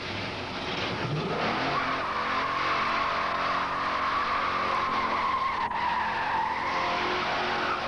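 Plymouth GTX V8 muscle car doing a burnout: the engine is held at high revs while the rear tires spin. A long, steady tire squeal sets in about a second and a half in and holds near one pitch, then eases near the end.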